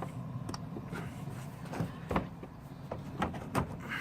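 A series of short, sharp clicks and knocks from car parts and tools being handled, several of them in the second half, over a steady low hum.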